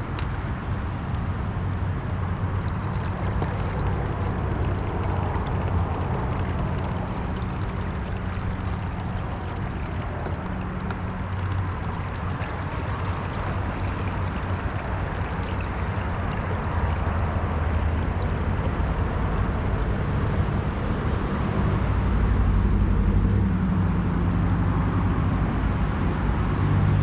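A kayak's motor running steadily under way, a low hum with water rushing and gurgling along the hull. It gets louder near the end.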